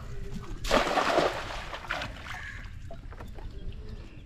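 A hand-thrown cast net lands on the water with one loud splash about a second in as its weighted edge hits the surface, followed by a short fading hiss of water as it settles and sinks.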